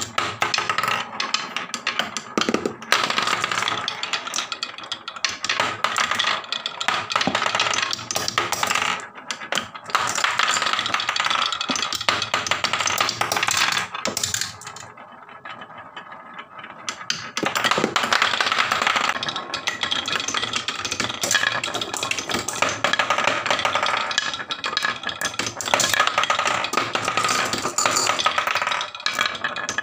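Glass marbles rolling and clattering down a wooden HABA marble run with wave-shaped grooves: a dense, continuous run of small knocks and rattles. It drops away for a few seconds about halfway through, then picks up again as more marbles are released.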